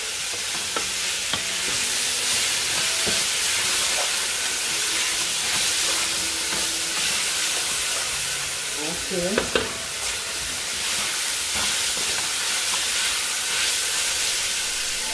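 Sliced vegetables sizzling as they stir-fry in a hot pan, with a wooden spatula knocking and scraping against the pan as they are turned.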